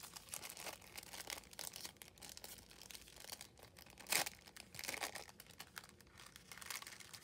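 Clear plastic packaging sleeve crinkling as hands work a clear stamp sheet back into it. The crackling is irregular throughout, with the sharpest crinkle about four seconds in.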